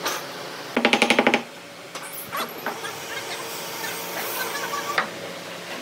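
A handheld power tool hammering in a short, rapid burst about a second in, followed by a few light knocks of wood on wood.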